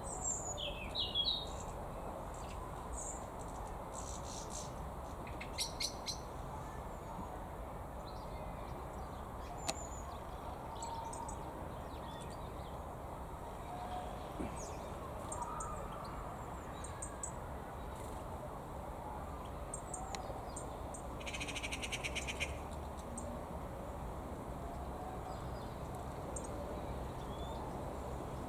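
European goldfinches calling: scattered short, high chirps and twitters, with a quick buzzy rattle about 22 seconds in. A steady low background noise runs underneath.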